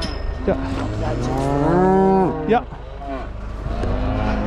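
Cattle mooing, several calls overlapping. One long, loud moo swells around two seconds in and drops away, followed by a sharp knock.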